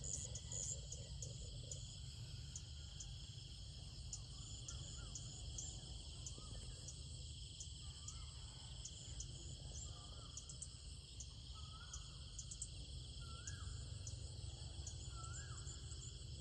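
A steady insect chorus, crickets chirring, runs throughout, with faint short rising-and-falling bird calls repeating every second or two from about halfway through, over a low rumble.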